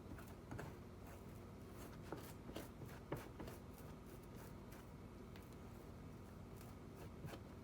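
Faint scraping of a knife spreading butter on a slice of bread, with a few light scratchy strokes and soft clicks.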